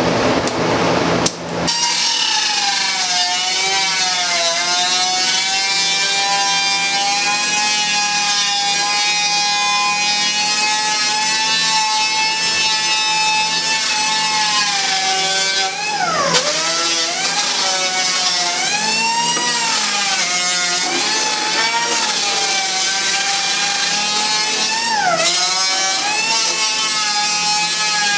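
A 5-inch disc sander with a 40-grit disc sanding a fiberglass boat seat base: a steady, high motor whine that dips briefly in pitch several times as the disc is pressed in, most sharply just past halfway and again near the end. A short burst of other tool noise comes first, before the sander starts.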